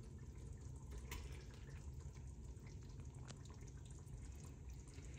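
Quiet kitchen sounds: a steady low hum, with a couple of soft clicks from a metal ladle as sauce is spooned onto a plate of rice, about a second and about three seconds in.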